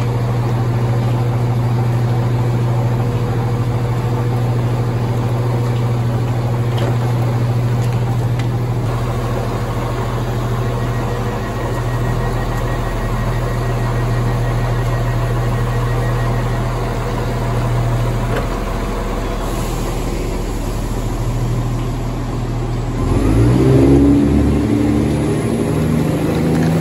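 Diesel multiple unit's underfloor diesel engine idling with a steady low hum. About three-quarters of the way through, the engine note rises and grows louder as it powers up.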